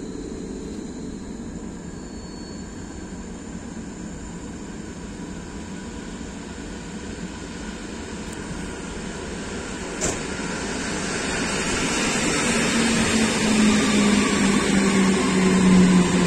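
EN57AL electric multiple unit approaching along the platform track: a low rumble grows steadily louder from about ten seconds in, and in the last few seconds a whine from its drive comes in and drops slightly in pitch as the train slows. A single sharp click sounds about ten seconds in.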